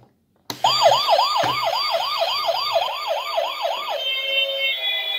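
Toy fire truck's electronic siren, starting with a click as it is switched on: a fast wailing siren sweeping up and down about three times a second through the toy's small speaker, changing about four seconds in to a different pattern of steady electronic tones.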